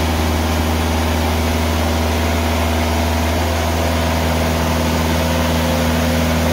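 TimberKing sawmill's engine running steadily at throttle, an even low-pitched drone that does not change.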